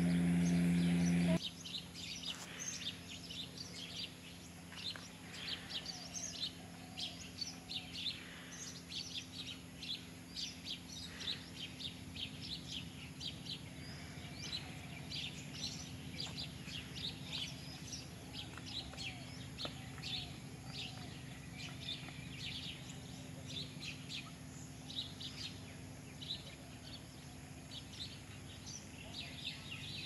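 A loud steady hum cuts off abruptly about a second in. After it, many birds chirp over and over in short, high calls.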